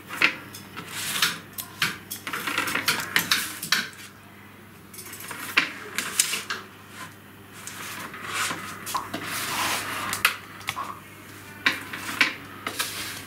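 Spatula scraping across metal baking trays and trays clanking on the worktop as baked pastry slices are moved onto a wire cooling rack: an irregular run of short scrapes and clanks.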